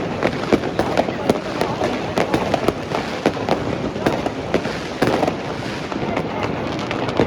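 New Year's Eve fireworks and firecrackers going off in a dense, continuous barrage: many sharp bangs and crackles a second, overlapping and irregular.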